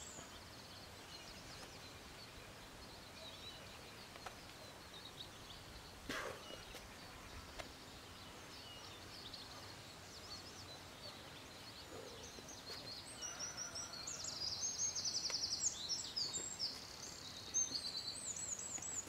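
Birds singing over quiet outdoor background noise, with a busy stretch of rapid trilling chirps in the last third that is the loudest part. There is a single sharp knock about six seconds in.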